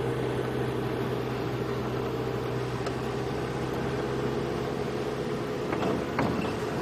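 Safari game-drive vehicle's engine running steadily as it drives, a low, even hum, with a few short knocks or rattles near the end.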